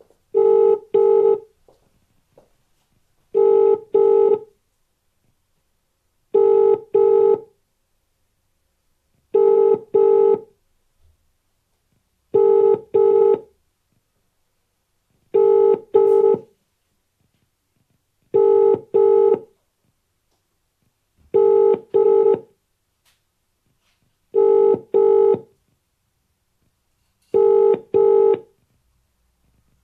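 British telephone ringback tone heard through a phone's speaker: a steady double ring repeating about every three seconds, ten times. The call is ringing out and has not been answered.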